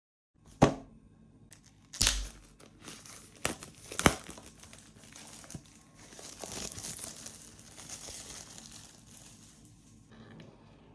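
Gloved hands handling a cardboard smartwatch box: three sharp knocks in the first four seconds, then several seconds of crinkling and tearing of the packaging.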